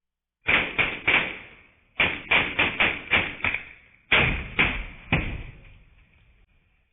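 A series of sharp impacts in three groups: three quick hits, then six, then three more, each ringing out briefly.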